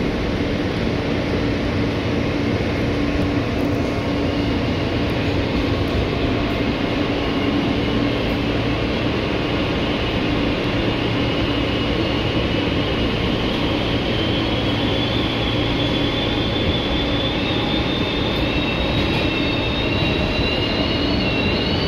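Inside an Alstom-built R160A subway car in motion: steady running noise of the wheels and car with a constant low hum. Over the second half a high whine rises slowly in pitch.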